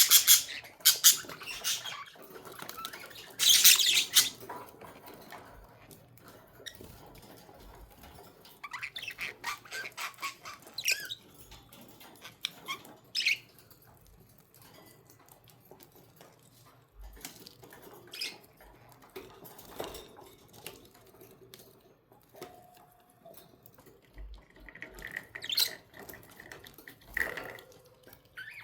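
Pet budgerigars chirping and squawking in irregular bursts. The loudest bursts come in the first few seconds, with quieter gaps and scattered chirps after.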